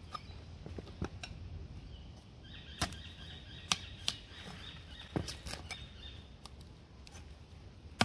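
Wooden stingless bee hive box being worked apart with a screwdriver: scattered sharp clicks and knocks, with a faint high squeak lasting a few seconds near the middle.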